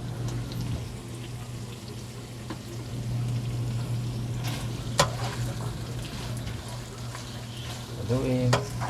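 Chicken liver and fried tofu in oyster sauce sizzling in a pan as they are stirred together, with a sharp clack of the spatula against the pan about five seconds in. A steady low hum runs underneath.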